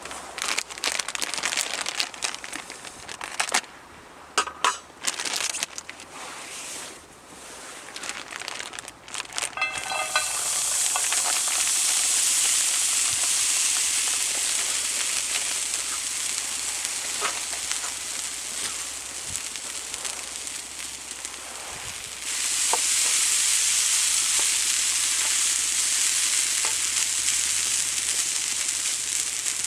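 Handling clicks and knocks, then about ten seconds in dry curry starts sizzling loudly in a small frying pan used without oil. The sizzle holds steady, eases a little, and grows louder again about twenty-two seconds in.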